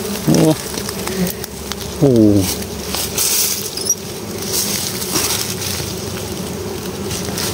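Honey bees buzzing as a steady hum. There are two short vocal exclamations from a person, the second falling in pitch about two seconds in.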